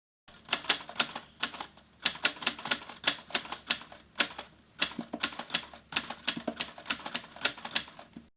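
Typing on keys: an irregular run of sharp key clacks, several a second, that starts just after the beginning and stops just before the end.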